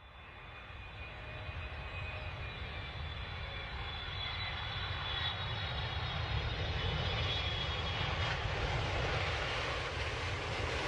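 Jet airliner's engines growing louder over the first several seconds and then holding steady: a deep rumble with a high whine that drifts slowly down in pitch.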